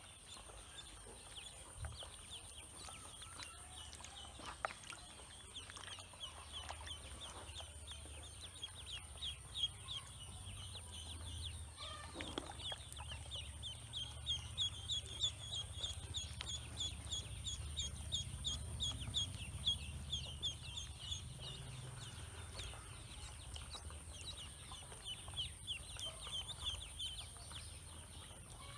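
A group of ducklings peeping continuously: a dense run of short, high, falling peeps, several a second. A steady, thin, high whine runs underneath.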